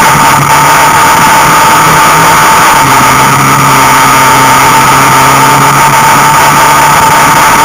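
ATV engines running at steady riding speed on a dirt trail, loud and unbroken, with the engine note settling a little lower about three seconds in.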